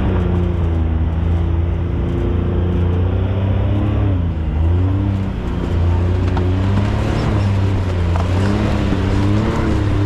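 UTV engine running as the side-by-side climbs a snowy, icy trail, its revs dipping and rising a couple of times.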